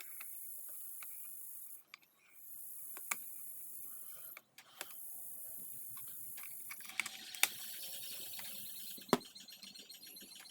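Steady high hiss with a few scattered sharp clicks and taps, the loudest about three quarters of the way in.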